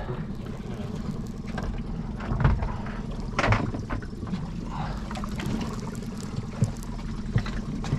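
A boat's engine idling steadily under a low hum, with a few short knocks about two and a half, three and a half and six and a half seconds in.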